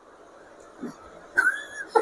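A girl's short, high-pitched vocal sound, held for about half a second near the end after a mostly quiet start. It is a wordless noise made while acting out a word.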